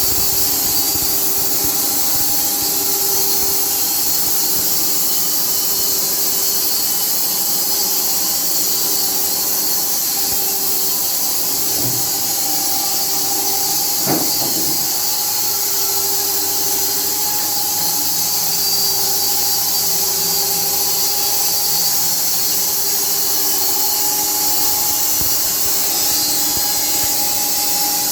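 Carpathian SMFA 1000 horizontal band sawmill running a slow automatic cut through a log: a steady, loud high hiss from the blade over a constant machine hum, with a brief sharper sound about halfway through.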